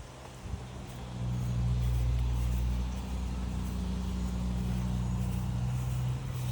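A steady low motor hum starts about a second in and holds an even pitch.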